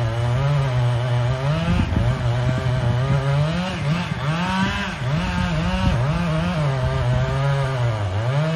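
An engine running hard, its pitch rising and falling again and again as the throttle or load changes.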